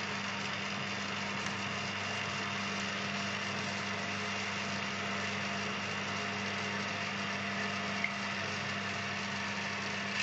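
Metal lathe running steadily in reverse with an even motor hum, power-tapping a left-hand thread with a straight-flute tap held in the tailstock drill chuck.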